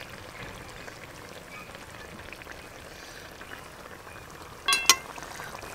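Fish curry simmering in an iron kadai over a wood fire, a steady faint bed of soft crackling and bubbling. Near the end a short, loud pitched sound cuts in briefly.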